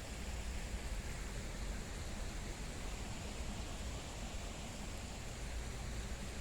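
Steady rush of running water from a garden stream or cascade, a constant even hiss with a low rumble beneath.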